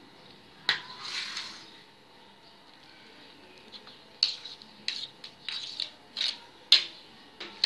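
A spoon knocking and scraping against a steel tray as thick cooked gram-flour (besan) batter is scraped onto it. One sharp knock with a short scrape about a second in, then a run of quick clicks and scrapes in the second half.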